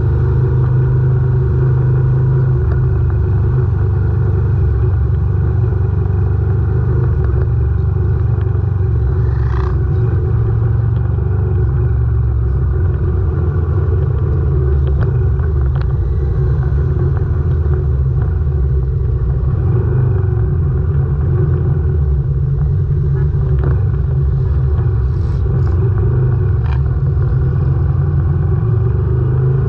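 Moto Guzzi V85 TT's air-cooled transverse V-twin engine running steadily at a low, even cruising pace, a deep rumble without big revs, heard from the bike itself.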